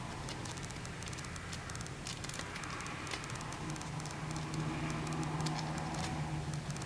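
Thin origami paper crackling and rustling under the fingers as it is folded by hand, in many small dry clicks. A low steady hum comes in about halfway through.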